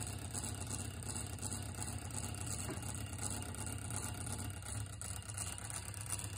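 Meccano-built synchronous clock motor running with a steady low hum, its gear train turning.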